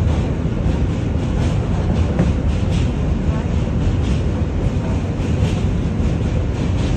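New York City subway train running across a steel bridge, heard from inside the car: a steady, loud rumble of wheels on rails, with faint ticks at even spacing.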